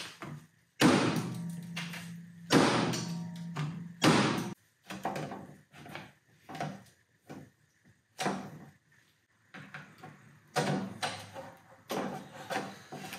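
Rubber mallet knocking a metal gallon paint can three times, each knock with a short low ring. Lighter clicks and scrapes follow as the lid is pried with a flathead screwdriver.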